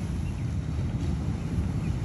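Wind buffeting the microphone, a steady low rumble, over the wash of ocean surf.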